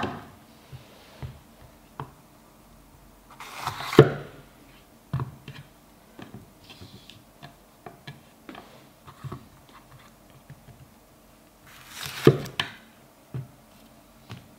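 Bunka kitchen knife slicing a green bell pepper into rings on a wooden cutting board: crisp crunches as the blade goes through the pepper and knocks as it meets the board, with lighter taps in between. The loudest cuts come at the start, about four seconds in and about twelve seconds in.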